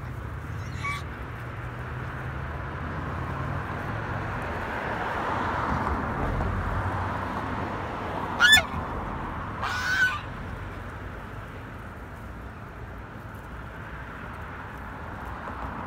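Domestic swan goose calling: two loud short honks about a second and a half apart past the middle, with a fainter call about a second in, over a steady background rush.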